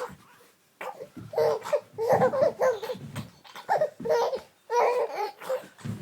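A baby laughing in a run of short bursts, starting about a second in.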